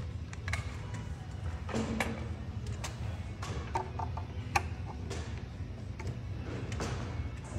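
Scattered clicks and taps of plastic connectors and aluminium bars being handled and pressed together, over a steady low hum.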